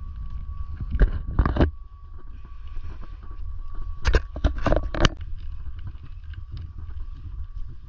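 Footsteps crunching through leaf litter and brush on a woodland trail, over a low wind and handling rumble on the microphone. The crackles come in two bursts: a couple about a second in, and a quicker run of four around four to five seconds in. A faint steady thin tone runs underneath.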